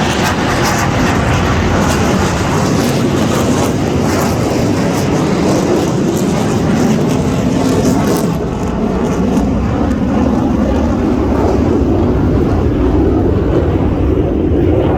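Aircraft flying past, a loud steady engine rush whose high end fades after about halfway while the lower noise carries on.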